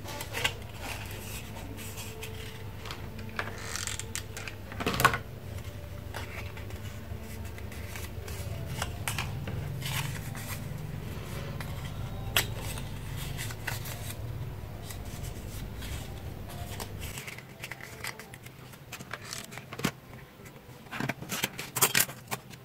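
Colored paper being handled and cut with scissors: scattered snips, rustles and light taps, the sharpest about five seconds in and again near the end. A low steady hum underneath stops about 17 seconds in.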